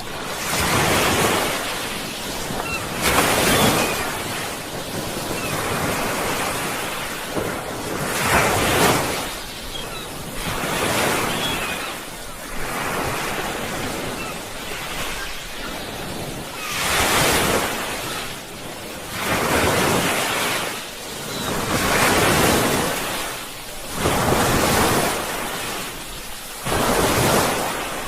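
Sea waves breaking and washing on the shore, surging and receding in swells every two to three seconds.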